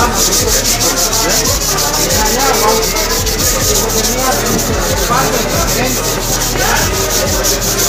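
Abrasive cloth (metal sandpaper) rubbed by hand over sheet metal in quick, even back-and-forth strokes, a steady scratchy sanding sound: the cut of the abrasive biting into the metal.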